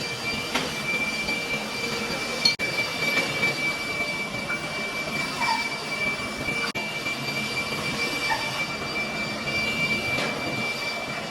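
A workshop machine running steadily, with a constant high-pitched whine over a harsh, even noise.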